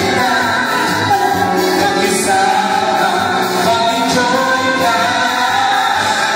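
Amplified live singing into handheld microphones over backing music.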